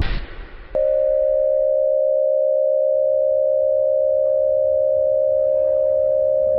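A rumbling noise dies away, and under a second in a steady electronic alert tone cuts in abruptly and holds at one pitch. It is an emergency-broadcast attention signal, the tone that comes before an emergency bulletin.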